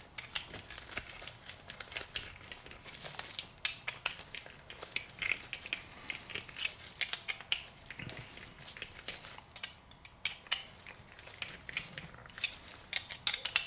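Irregular small metallic clicks and ticks of a hand screwdriver working the screws on a 6.0L Powerstroke injector's spool valve housing, driving them down evenly, one side then the other.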